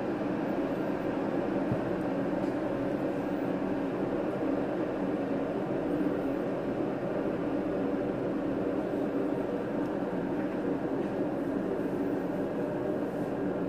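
Steady, unchanging machine drone with a low hum.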